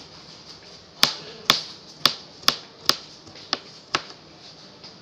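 Kitchen knife chopping cucumber on a cutting board: seven sharp knocks of the blade striking the board, about two a second, starting about a second in.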